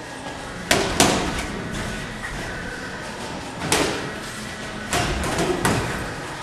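Boxing gloves landing punches during sparring: about five sharp smacks, the first two close together a little under a second in, the rest spread through the later seconds.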